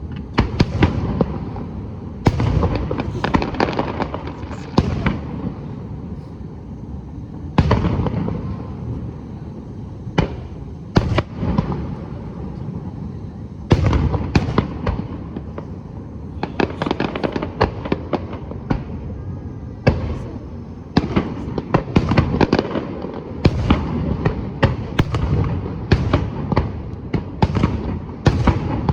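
Aerial fireworks bursting: single booms that ring out after each bang, then dense runs of rapid bangs and crackles near the middle and again through the last third.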